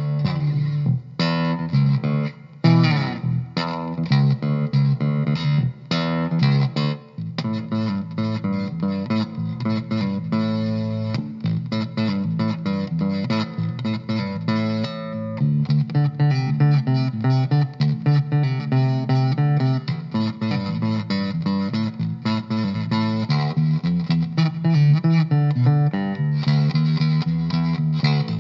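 Electric bass guitar, a 1951-style Precision Bass reissue, played as a demo: a run of plucked notes with a slide up the neck about three seconds in, then more sustained, fuller playing.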